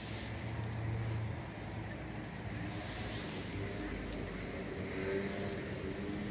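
Cat crunching dry kibble in a run of small, fairly regular ticks, over steady background noise with a low hum.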